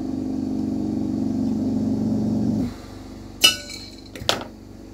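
A steady low hum that cuts off suddenly just past halfway, then a sharp, ringing clink of a hard object set down on the workbench and, about a second later, a duller knock.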